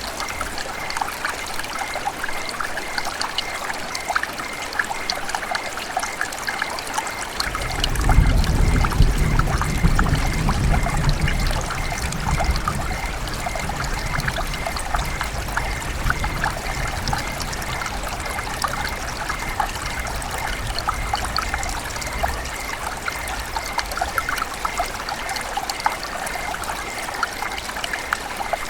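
River water running and trickling, a steady splashing with many small crackles. A deep low rumble swells in about eight seconds in and fades out some five seconds later.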